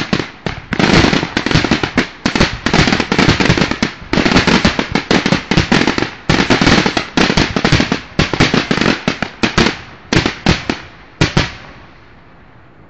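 Fireworks finale barrage: aerial shells bursting in rapid, overlapping bangs, several a second. The bangs thin out and stop about a second before the end.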